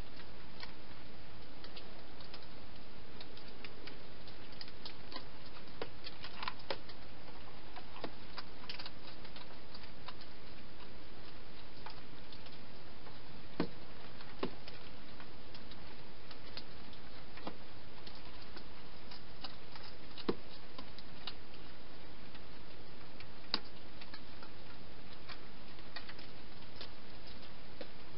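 Wild hedgehog eating inside a plastic feeding box: irregular small crunches and clicks of chewing, over a steady hiss.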